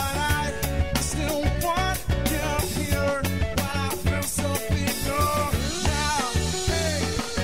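Background music: a band with a drum kit keeping a steady beat under a gliding lead melody.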